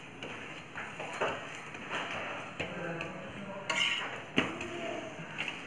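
Spatula scraping and tapping on a flat tawa (griddle) as a paratha is pressed and turned, with a few short clicks, the sharpest about four seconds in.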